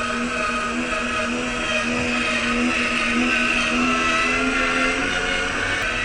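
Small electric motor and gearbox of a WPL C94 UAZ-469 RC car whining steadily as it drives, the pitch wavering slightly and shifting about five seconds in.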